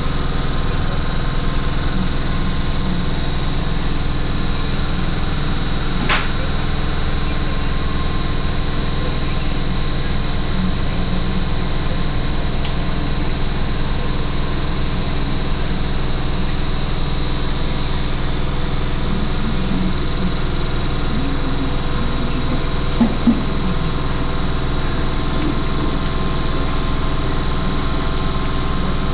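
CNC flatbed cutting machine running with a steady hum and hiss, with a single sharp click about six seconds in.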